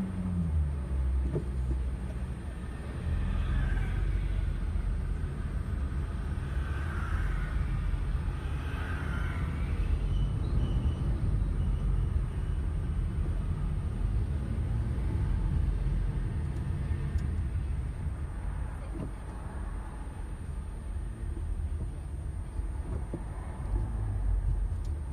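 Car engine and road rumble heard from inside the cabin while driving slowly in city traffic: a steady low drone that swells a little in the middle and eases near the end.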